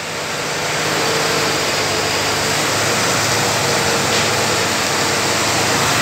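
4x4 farm tractor engine running steadily, pulling a feed wagon, with a faint whine that comes and goes.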